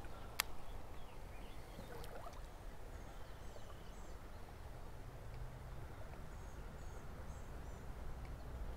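Quiet creek-side ambience: a steady low background rush with faint, scattered bird chirps, and one sharp click about half a second in.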